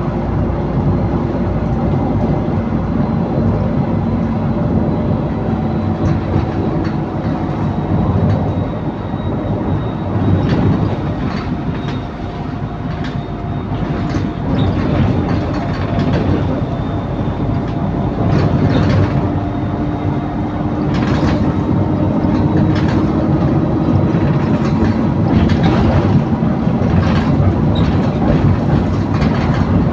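Cabin noise of an Optare Solo SR bus with a Voith automatic gearbox under way: the drivetrain runs steadily, with whining tones that slowly drift in pitch, one rising over the last ten seconds. Over it come frequent short rattles and knocks from the body and fittings.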